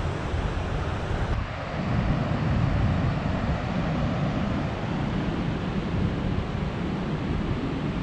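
Steady roar of rushing water at high snowmelt flow, heavy in the low end. It grows a little fuller and louder about a second and a half in.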